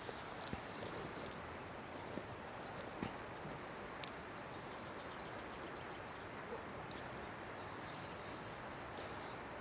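Small birds chirping in short repeated phrases of quick falling notes, every second or two, over a steady outdoor background hiss, with a few faint clicks in the first few seconds.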